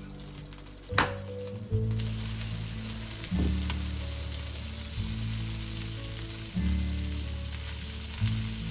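Food sizzling as it fries in a hot pan, over background music with low chords that change every second or two. A sharp click comes about a second in.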